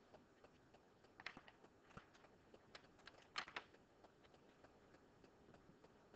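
Near silence with a few faint clicks and rustles of a pen being handled, the loudest about three and a half seconds in.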